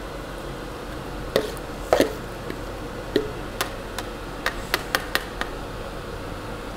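Utensils knocking and tapping against a large salad bowl while the salad is handled: about ten sharp, irregularly spaced knocks, the loudest about two seconds in.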